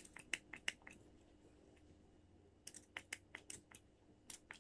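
Faint, light clicks and taps in quick runs, a cluster in the first second and another about three seconds in, from small pedicure tools and bottles being handled at the toenails.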